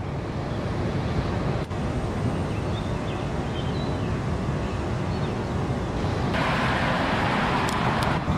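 Steady outdoor city background noise with a low rumble, fading in at the start. A louder hiss joins about six seconds in.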